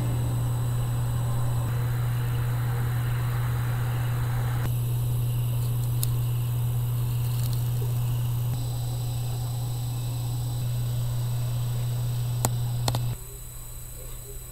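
A steady low hum over a faint hiss, cutting off suddenly shortly before the end, with a few sharp clicks about six seconds in and again just before it stops.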